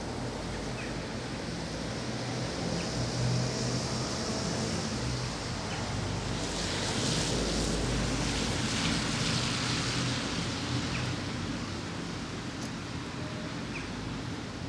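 Outdoor street ambience: a car passes on a wet road, its tyre hiss swelling and fading about halfway through, over a steady low hum, with a few faint bird chirps.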